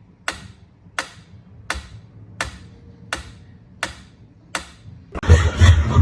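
Seven sharp ticks at an even pace, about three every two seconds, like a clock ticking. About five seconds in, a much louder, dense sound with heavy bass cuts in.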